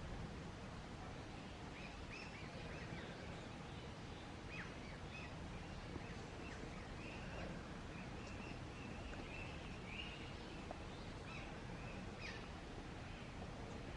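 Faint forest ambience: small birds give short chirps and calls every second or so over a steady low background noise.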